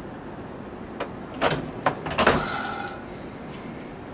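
Metal file-cabinet drawer handled: a few knocks and clunks, then a sliding metal scrape with a brief ringing tone about two seconds in.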